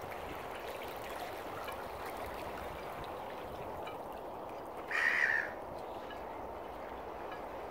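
Steady lapping of water with one loud, harsh bird call about five seconds in, lasting about half a second.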